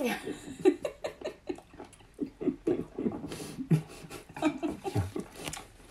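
Close-up eating sounds: rice noodles slurped and chewed, with wet mouth clicks and lip smacks in quick, irregular bursts.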